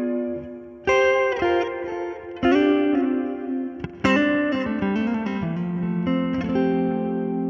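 Fernandes electric guitar played through a Hotone Ampero One amp-modelling unit: chords struck about three times, each left to ring out, with shorter note changes toward the end.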